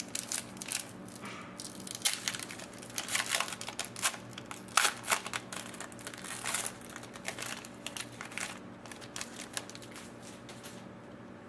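A sports card pack wrapper being torn open and crumpled: a run of irregular crinkles and rips that thins out and stops near the end.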